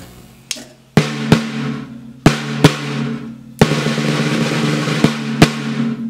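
Drum kit played with sticks: a handful of hard snare hits, each followed by a bright cymbal wash over ringing drum tones. From about three and a half seconds in there is a sustained roll on the snare, capped by two more accents near the end.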